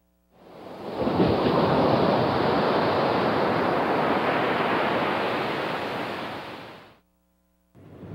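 A loud, steady rushing noise that swells in over the first second, holds, then fades and cuts off about seven seconds in.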